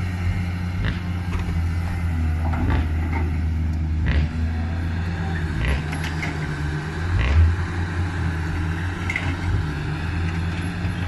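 Caterpillar 320C excavator's diesel engine running steadily, with a handful of scattered knocks and clanks; the loudest comes about seven seconds in.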